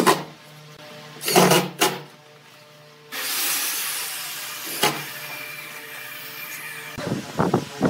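Background music with sustained tones and short accents. About three seconds in, a hissing noise starts and slowly fades, and sharp repeated knocks come near the end.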